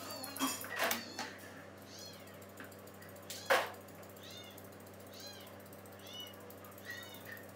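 Short high-pitched cries from a small animal, rising and falling, repeating about once a second. A few sharp snips of grooming scissors cut through, the loudest about three and a half seconds in.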